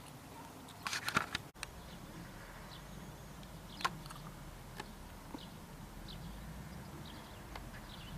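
Outdoor ambience: faint scattered bird chirps over a low steady rumble, with a brief burst of rustling about a second in and a few soft clicks later.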